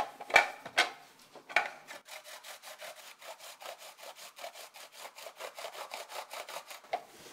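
Cucumber being grated on the coarse side of a metal grater: a few louder strokes at first, then quick, even rasping strokes, about eight or nine a second.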